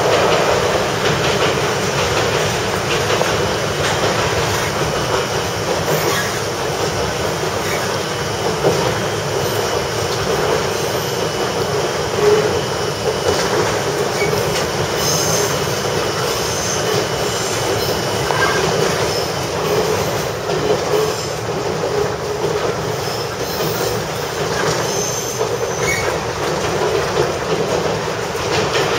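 Kominato Railway KiHa 200 diesel railcar running along rough single track, heard from inside the driver's cab: a steady rumble of engine and wheels on rail with rattling. The track is in poor condition and the car jolts over it. Brief high wheel squeals come now and then, about halfway through and again near the end.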